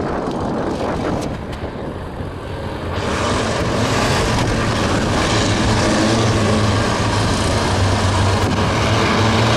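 Engines of a pack of banger race cars running together on the track, low and rumbling. About three seconds in the sound gets louder and fuller.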